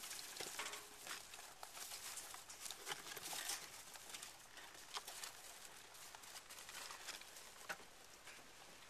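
Baby Angora rabbits shuffling about in hay in a cardboard box: faint rustling with scattered light scratches and clicks of small claws.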